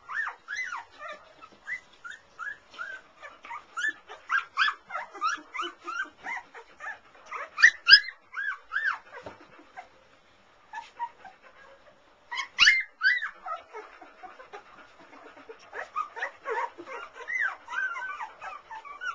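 Litter of two-week-old golden retriever puppies whimpering and squeaking: many short, high, wavering cries, some overlapping, with a brief lull about halfway through and a couple of louder yelps.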